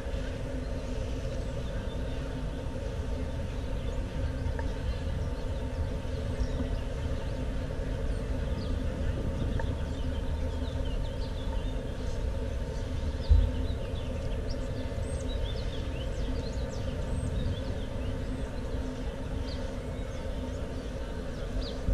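City street noise: a steady low traffic rumble with a constant hum, and one short thump about thirteen seconds in.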